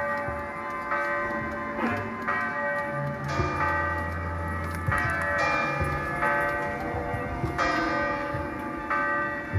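Bell-like metallic ringing: a fresh strike every second or so, each one ringing on over the last, with a steady low tone underneath.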